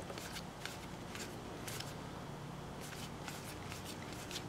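Faint papery flicks and slides of trading cards being pushed off a deck one at a time and gathered into the other hand, coming irregularly about once or twice a second.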